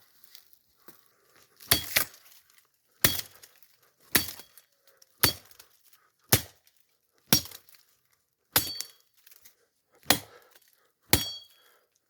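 A bladed tool chopping into a tree trunk: about nine hard strikes, roughly one a second. Some strikes carry a brief metallic ring from the blade.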